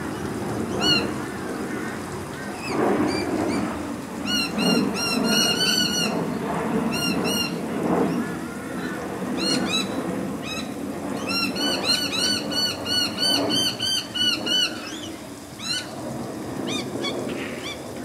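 Noisy miners giving their alarm call: rapid runs of high, arched, whistled notes in two long bouts, with scattered single notes between. Lower, rougher sounds run underneath.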